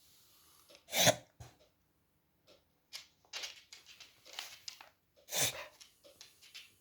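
A dog reverse sneezing: a fit of sudden, forceful, noisy breaths pulled in through the nose. Two loud ones come about a second in and just past five seconds, with a quick run of smaller ones between. It is a spasm of the throat and soft palate, usually set off by irritation.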